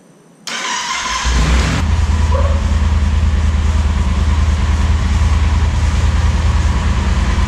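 Yamaha Super Tenere's 1200 cc parallel-twin engine started on the electric starter: about half a second in the starter cranks, the engine catches within a second and settles into a steady, pulsing idle. This is the first start after a fresh oil and filter change.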